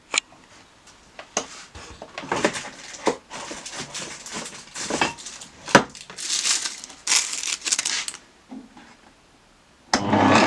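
Irregular clicks, knocks and rustling of things being handled, stopping about eight seconds in; music starts just before the end.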